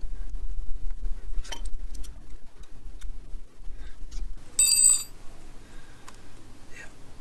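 Small clicks of hand work on the ignition plate screws of a Honda CB750 engine. About four and a half seconds in, a metal tool clinks against metal with one bright ring lasting about half a second. A low rumble runs under the first four seconds.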